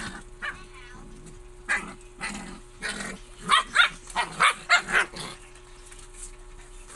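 Husky puppy vocalizing in a string of short yips and grumbles during play, most of them bunched about halfway through.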